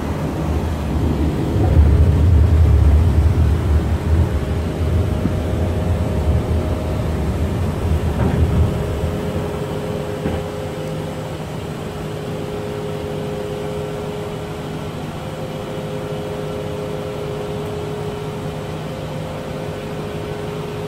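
Airbus A330-300 flight-deck noise in flight: a steady hum with two faint steady tones. A heavy low rumble runs through the first part and dies away about nine seconds in.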